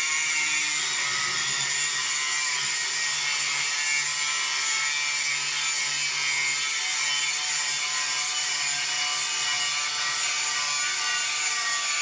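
Belt sander running with a steel knife blade pressed against the belt, grinding a bevel onto it: a steady, even grinding hiss.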